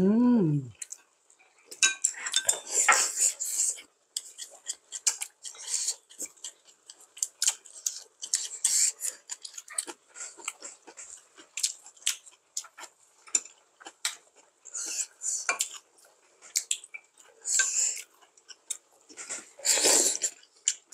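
Two people eating dumpling hot pot: chopsticks and spoons clicking against bowls and a steel pot, with slurps of hot broth and chewing between the clicks.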